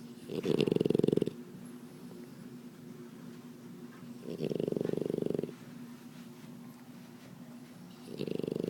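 French Bulldog snoring in its sleep: three snores about four seconds apart, each lasting about a second, the first the loudest and the last starting near the end.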